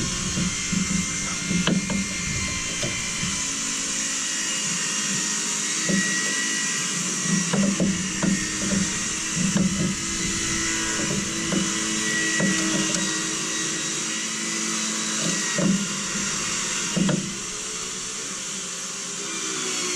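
Power tools running steadily in the background, with short, irregular louder bursts.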